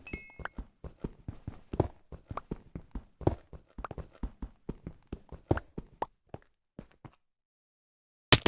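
A quick, uneven series of short thuds and taps, about three or four a second, that thins out and stops about seven seconds in; one sharp, loud click comes near the end.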